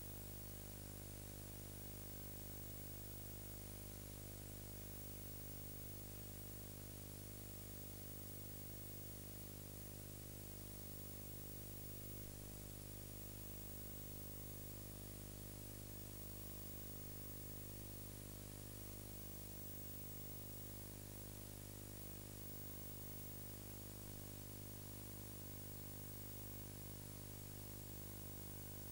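Steady low electrical hum with many evenly spaced overtones under a constant hiss, the background noise of an old tape transfer; no other sound.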